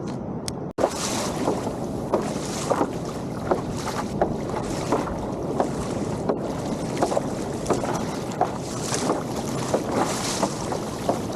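Choppy water slapping and splashing against a kayak's hull in small irregular bursts, with wind buffeting the microphone.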